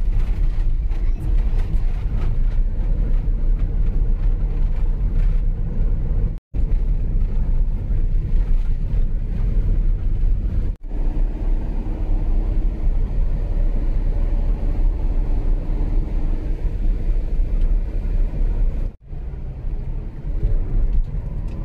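A car driving, heard from inside the cabin: steady low road and engine rumble. It cuts out briefly three times, at about six, eleven and nineteen seconds in.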